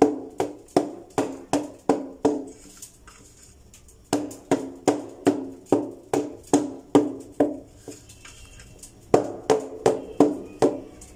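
Round steel cake tin full of sponge-cake batter knocked down on a hard floor over and over, about two to three knocks a second in three runs separated by short pauses, each knock ringing briefly. The tapping settles the batter and knocks out air bubbles before baking.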